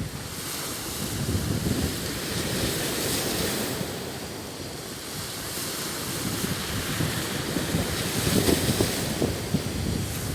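Sea waves washing onto the shore, swelling around a second in and again near the end, with wind buffeting the microphone.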